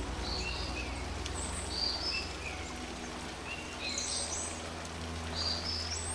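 A songbird singing several short phrases of high whistled notes that step up and down, over the steady hiss of light rain and a low rumble.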